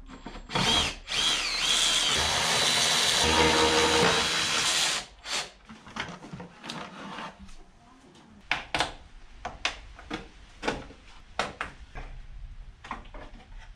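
Cordless power screwdriver running for about four seconds with a wavering whine, undoing the fasteners of the engine-bay trim, followed by a run of sharp plastic clicks and knocks as the engine cover and trim pieces are handled and lifted off.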